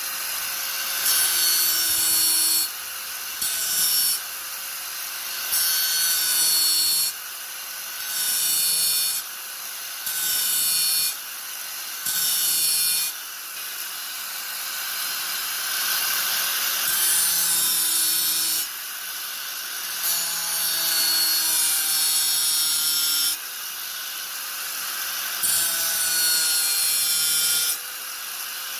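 Angle grinder running steadily, its disc pressed into the workpiece again and again in passes of one to three seconds; each pass brings a louder, hissing grind over the motor's whine.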